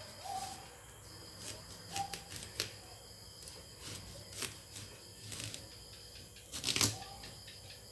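A kitchen knife cutting through a whole watermelon: scattered crisp cracks and crunches as the rind splits, loudest a little before the end.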